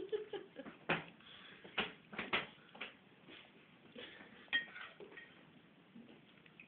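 Tableware clinking and knocking as a child eats, a utensil striking a dish. There are about a dozen irregular light clicks and knocks, a few sharper ones about a second, two seconds and four and a half seconds in.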